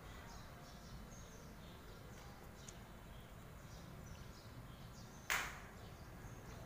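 A person eating spicy noodle soup: over a quiet background, about five seconds in, one short loud rushing breath noise from the eater, fading within about half a second.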